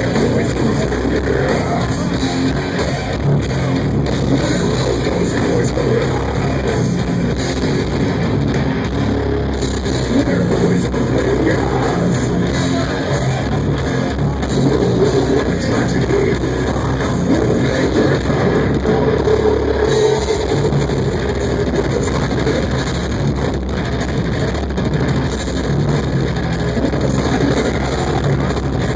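Death metal band playing live at full volume: distorted electric guitars over bass and a pounding drum kit, dense and unbroken.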